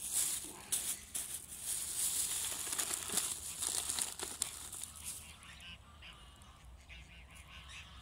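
Plastic biscuit bag crinkling and rustling as it is opened, for about five seconds. Then it goes quieter, and faint short calls from the waterfowl come in near the end.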